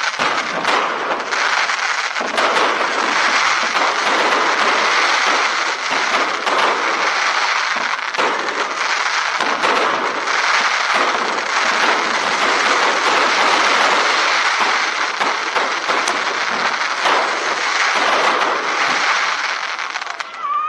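Dense, continuous barrage of aerial fireworks, many bursts and crackles overlapping without a break. It stops suddenly at the very end.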